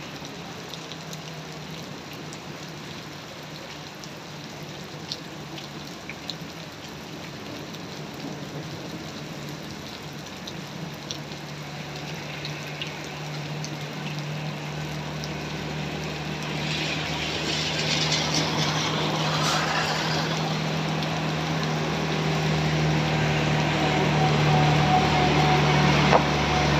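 Heavy rain falling steadily on a flooded road. From about halfway a truck's diesel engine approaches and grows steadily louder, its tyres hissing through standing water, until it passes close by near the end.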